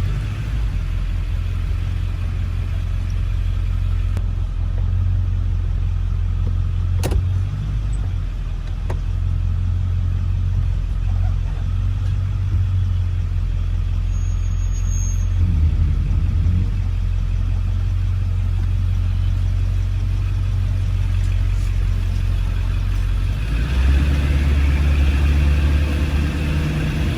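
A 7.3 Powerstroke turbo-diesel V8 in a 1997 Ford pickup running steadily on a short drive, with a single click about seven seconds in. The engine grows louder and fuller for the last few seconds.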